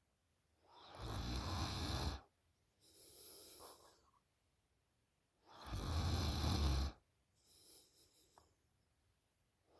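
A sleeping girl snoring loudly with her mouth open. There are two long, rumbling snores, about a second and a half each, and each is followed by a softer, shorter breath.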